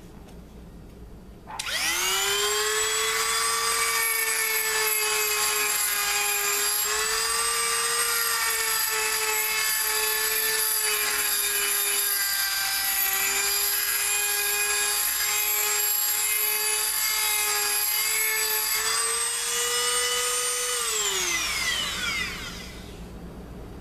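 Dremel rotary tool with a grinding stone spinning up to a steady high whine about two seconds in, grinding a burr out of a mower wheel hub's metal bearing bore, its pitch wavering slightly as it works. Near the end it is switched off and winds down with a falling whine.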